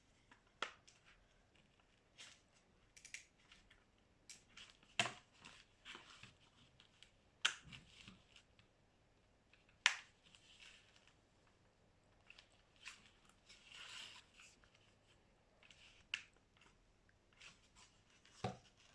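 Scattered small plastic clicks and snaps as the parts of a car's steering-wheel clock spring are handled and snapped back together, irregularly spaced, the sharpest about ten seconds in.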